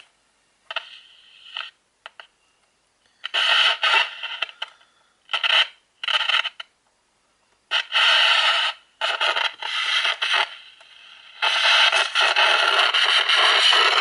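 Toy 27 MHz CB walkie-talkie hissing radio static through its speaker, cutting in and out in short stretches with silent gaps as it is handled, then hissing steadily for the last couple of seconds.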